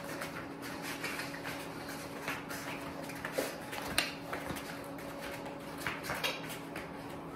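Irregular light clicks and scuffs of a Malinois puppy's paws and a person's steps moving on a hard floor during heeling, over a steady low hum.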